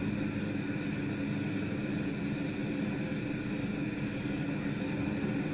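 Steady background hiss with a low hum underneath, even throughout: the recording's room tone, with no other sound.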